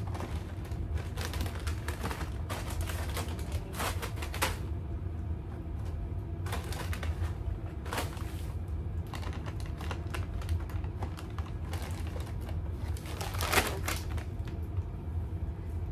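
Plastic snack bags of apple chips crinkling and rustling in irregular bursts as they are lifted out of a basket and handled, over a steady low hum.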